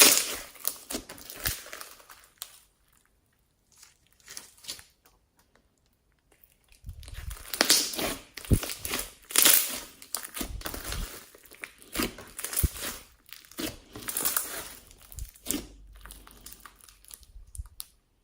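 Glossy slime with floam beads and clay mixed in, squished and stretched by hand, making sticky pops, clicks and crackles. A short run at the start, a near-silent pause, then steady squishing from about seven seconds in.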